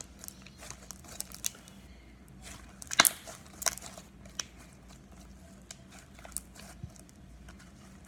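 Slime being mixed and squished by hand, giving scattered wet clicks and small pops, the loudest cluster about three seconds in.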